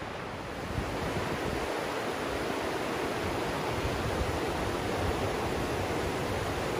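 Rushing water: a shallow, fast stream tumbling over rocks below a weir, a steady rush that grows a little louder about a second in.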